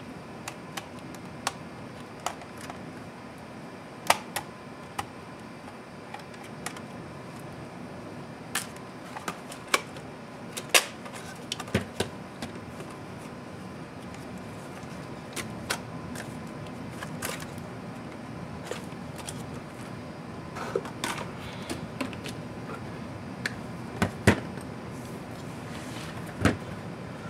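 Irregular sharp clicks and knocks of plastic laptop casing parts and a small screwdriver being handled during disassembly of a ThinkPad Helix keyboard dock, over a steady background hiss. The loudest knocks come near the end.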